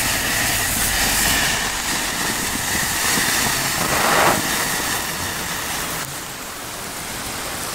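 Hand-held Czech bengal flare burning with a steady rushing hiss, which swells briefly about four seconds in.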